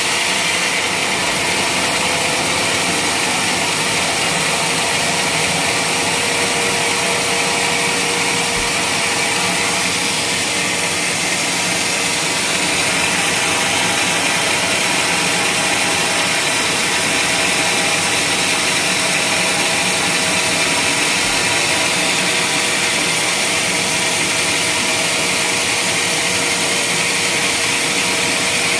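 Sawmill saw running steadily through a teak beam, with a continuous loud machine noise.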